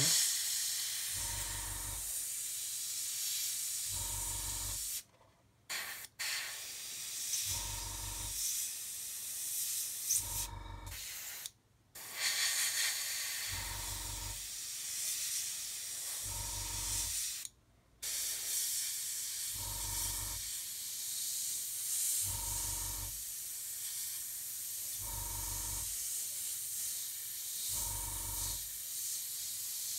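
Airbrush spraying paint: a steady high hiss of air that cuts off briefly three times as the trigger is released. A faint low pulse repeats about every three seconds underneath.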